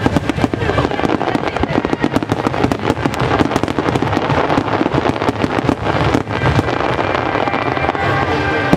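A dense, rapid barrage of aerial fireworks: many booms and crackling reports a second from shells and low fans of mine effects launching and bursting together, with no letup.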